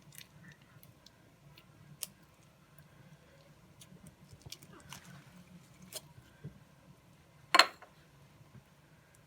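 Slime with foam beads being pressed and squeezed in the hands, giving faint scattered clicks and crackles, with one sharper, louder click about three-quarters of the way through.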